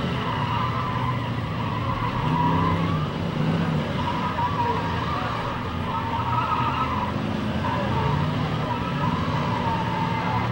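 Several demolition derby cars running at once, their engines revving up and falling back again and again, over a steady din of engine and crowd-less arena noise.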